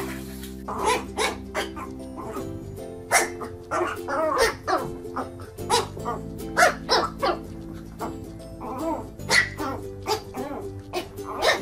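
Small puppy yapping in short, high barks again and again at its own reflection in a mirror, over background music.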